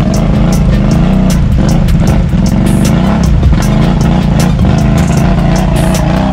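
A snorkeled four-wheeler's engine revved hard, rising and falling over and over as it is pushed through deep mud.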